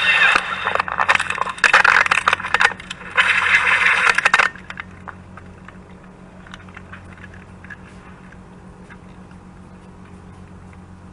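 Helicopter crashing through trees into the ground: loud crunching and scraping in three bursts over the first four and a half seconds, which then stops abruptly. After that only a low steady hum with faint scattered ticks remains.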